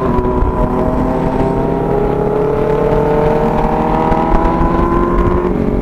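Kawasaki motorcycle engine with an aftermarket exhaust running under way, its pitch rising slowly and steadily as the bike accelerates, with wind rumble underneath.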